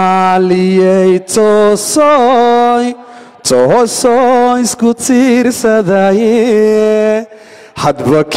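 A man singing unaccompanied into a microphone, holding long notes with vibrato in several phrases broken by short pauses.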